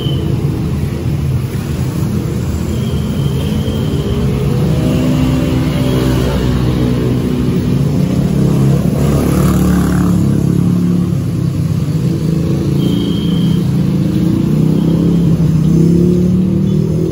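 Motor-vehicle engines, most likely motorbikes, running and revving past, their pitch rising and falling. Beneath them is a faint sizzle of bananas frying in oil in a wok.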